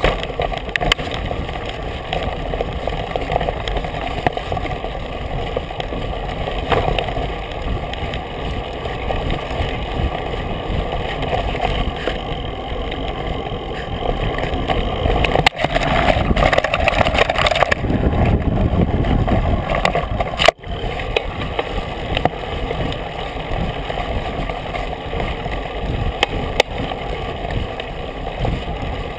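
Mountain bike ridden fast along a dirt forest trail, heard from a handlebar-mounted camera: a steady rush of wind on the microphone mixed with tyre rumble on the dirt and the rattle of the bike, louder for a few seconds around the middle.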